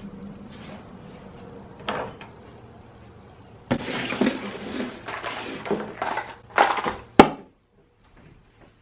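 A cardboard box and its contents handled on a tabletop: scraping, rustling and several knocks. It ends about seven seconds in with a single sharp thud, the loudest sound here, as a knife is jabbed into the box lid.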